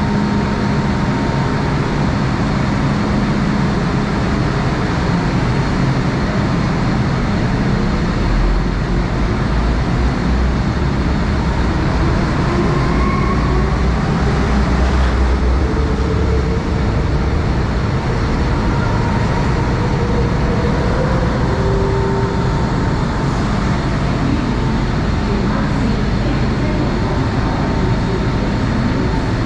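MTR M-Train running through a station platform without stopping: a steady, continuous rail rumble with a few faint gliding whines.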